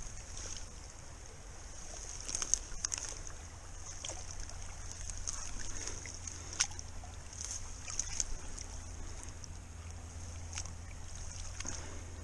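Shallow stream running and trickling at the bank, with a few sharp clicks and small splashes as hands work through the grass and water at the edge.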